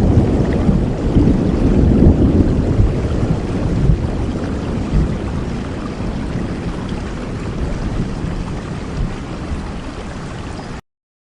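Heavy rain falling steadily, with a low rumble of thunder that dies away over the first few seconds; the sound cuts off abruptly near the end, leaving silence.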